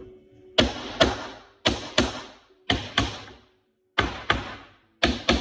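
Hammer driving a nail into the wood of a birdhouse kit: about eleven sharp strikes, mostly in quick pairs, each ringing briefly.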